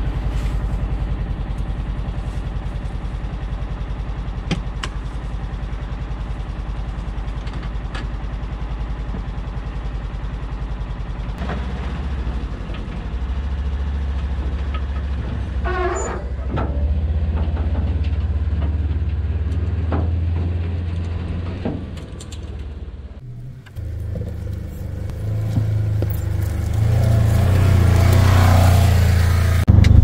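A vehicle engine running with a steady low rumble that gets louder partway through; about halfway a brief whine glides up and down, and after a short dip near the end the engine runs louder still.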